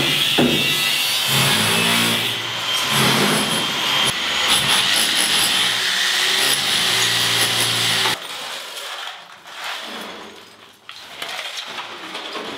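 Power tools on a tiled wall: an angle grinder cutting, then a rotary hammer chiselling off tiles, loud and continuous. About eight seconds in it drops suddenly to quieter scraping and knocks of rubble being shovelled and swept.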